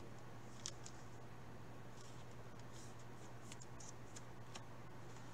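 Faint scattered scratchy rustles of trading cards being handled by gloved hands, sliding against card stock and plastic, over a steady low hum.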